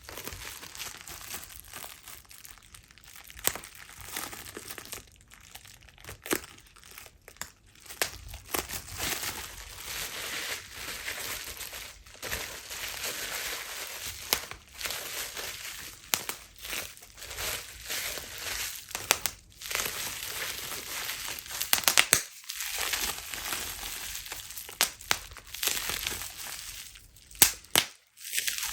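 Plastic bubble wrap being crinkled and squeezed, with a steady crackle and sharp pops scattered throughout, a few of them loud.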